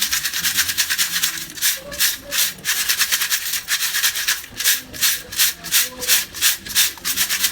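Pieces of roasted multani mitti (Fuller's earth clay) making a crisp, rattling crunch in regular strokes, about two to three a second, the rhythm growing more even in the second half.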